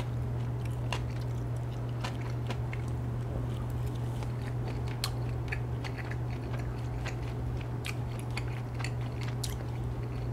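Close-miked chewing of soft boiled pork jowl-neck meat (gabrisal bossam), with small wet mouth clicks, over a steady low hum.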